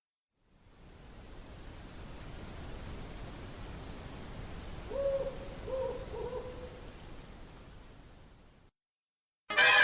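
Night ambience sound effect: a steady high cricket trill over a low rumbling background, with an owl hooting three short times about five seconds in. It fades down and cuts off near the end.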